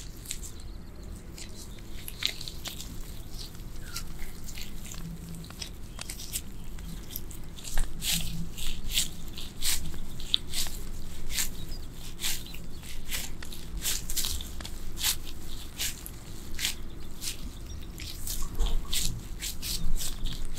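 Hands in disposable plastic gloves squeezing and shaping a rice ball wrapped in a sheet of nori, making a run of small sticky clicks and crackles that get busier about eight seconds in.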